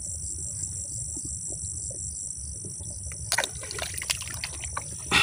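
Insects in the field vegetation calling steadily in a high, continuous chorus with a faint regular pulse, over a low rumble, with a few short clicks and rustles about three to four seconds in.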